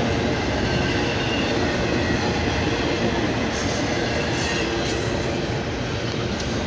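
Freight train rolling past: a steady rumble and rattle of its wheels on the rails.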